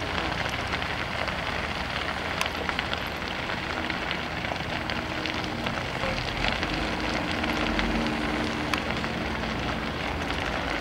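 Brush fire burning through dry grass and scrub on a hillside: a steady rushing noise dotted with many small crackles.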